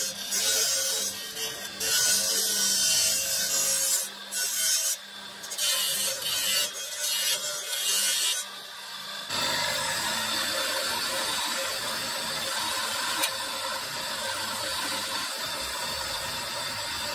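Onyx marble pressed against a spinning abrasive disc on a motor-driven shaft, grinding in on-and-off bursts of gritty rasping over a steady motor hum. About nine seconds in the bursts stop and a steadier, even noise carries on.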